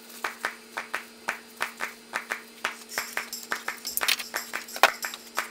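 Background music intro: an even beat of claps or percussion hits, about three a second, over a steady held tone that stops near the end.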